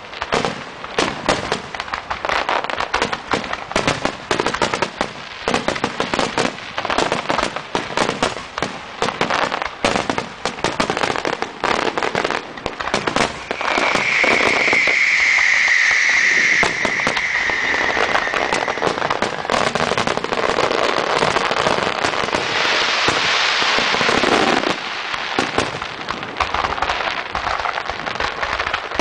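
Aerial fireworks going off in a dense, rapid stream of bangs and crackles. Near the middle a whistling firework sounds for about four seconds, its pitch dropping slightly, and a few seconds later there is a thick rushing crackle.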